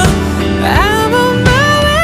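Background music: a song with a sung melody gliding between notes over a steady instrumental backing.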